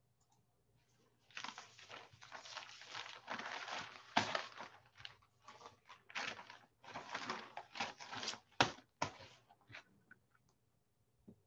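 Rustling and crinkling noises in irregular bursts, with a few sharp clicks.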